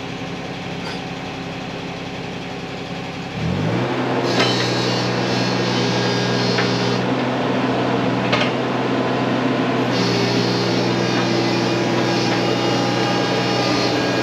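Mini excavator's diesel engine idling, then throttled up with a quick rise in pitch about three and a half seconds in, after which it runs steadily at the higher speed. Over it comes a hissing whine that starts and stops as the arm and bucket are worked, with a couple of sharp clanks.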